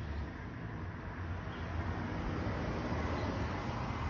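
Steady low rumble of outdoor street background noise, with no distinct bangs or shots.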